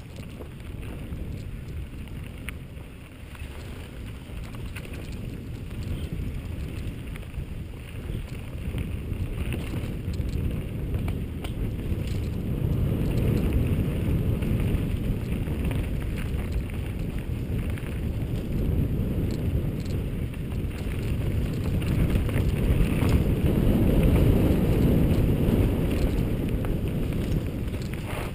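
Mountain bike riding down a dirt singletrack, heard from a helmet-mounted camera: wind noise on the microphone with the tyres and frame rattling over the ground. It grows louder about halfway through and again near the end as the bike speeds up.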